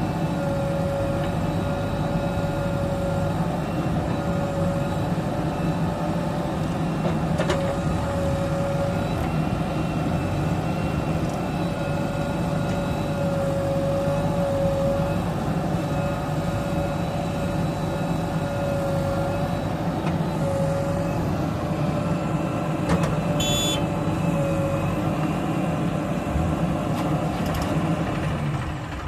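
Heavy diesel machinery running steadily at working revs, with a wavering whine running above the engine hum. A brief high-pitched squeak comes about 23 seconds in, and the engine eases off just before the end.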